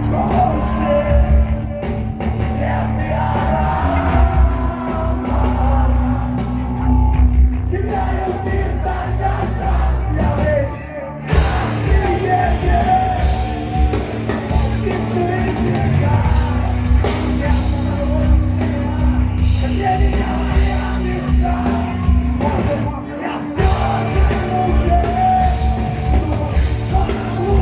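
A rock band playing a loud, heavy song live, with drums and guitars under a singer who sings and yells. The band drops out briefly about eleven seconds in, then comes back in full.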